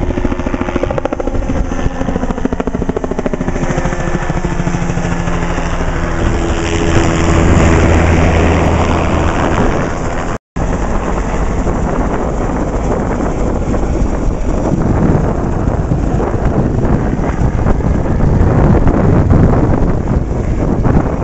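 Low-flying light helicopter, the rapid beat of its rotor blades and engine passing close overhead, its tone falling in pitch and loudest about eight seconds in. After a brief break about ten seconds in, the rotor beat returns loud and close again.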